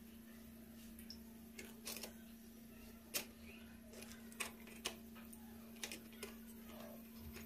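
Light clicks and taps of an aluminium idli steamer plate being handled as steamed rice-flour dumplings are lifted off it by hand, a handful of scattered knocks with the sharpest about three seconds in, over a steady low hum.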